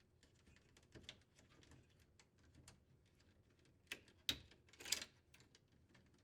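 Faint scattered clicks and rustles of a wire harness being worked free of plastic wire retainers, with a few louder clicks about four and five seconds in.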